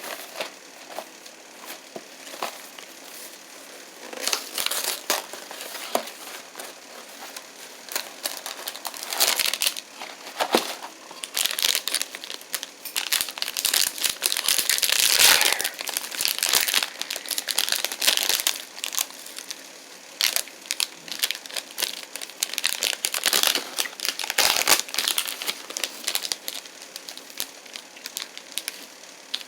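Crinkly snack-bar packaging being handled and opened, an irregular run of crackling and crumpling that is busiest in the middle.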